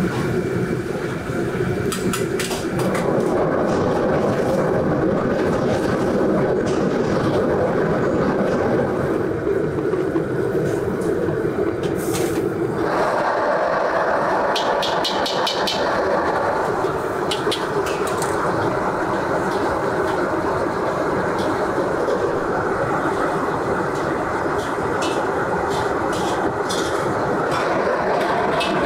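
Commercial wok-station gas burner running with oil sizzling and spattering in a carbon-steel wok, over a steady loud rush; scattered sharp metal clinks of a ladle and bowl against the wok. The noise shifts in character twice, about 3 and 13 seconds in, between deep-frying and stir-frying.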